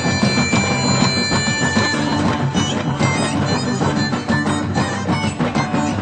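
Live Bulgarian folk dance music from a small band: a reedy wind-instrument melody over keyboard and a steady drum beat.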